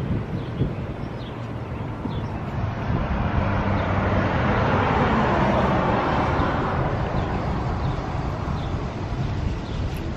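Passing vehicle noise outdoors, a steady rush that swells to a peak about halfway through and then fades.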